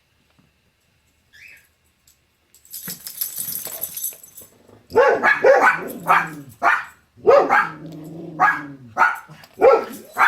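A dog barking repeatedly in quick succession, about two barks a second, starting about halfway through, with a few lower, drawn-out barks among them. A couple of seconds of noise come just before the barking.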